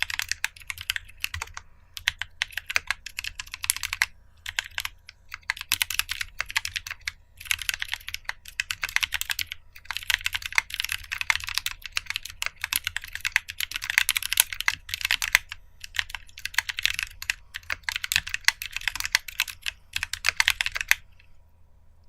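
Typing on a GK64 mechanical keyboard with lubed Halo True tactile switches on an aluminium plate, under JTK and GMK keycaps. The keystrokes come in quick runs broken by short pauses, and the typing stops about a second before the end.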